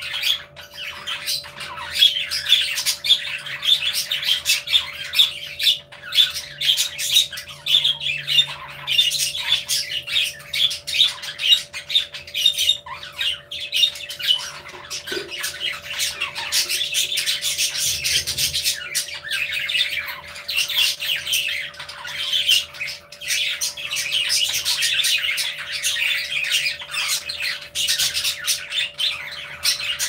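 A flock of budgerigars chattering and chirping without a break, many birds calling over one another.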